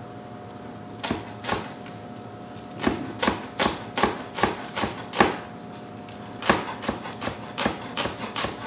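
A knife chopping green onions on a cutting board: sharp knocks of the blade on the board, two about a second in, then runs of about three chops a second with a pause in the middle.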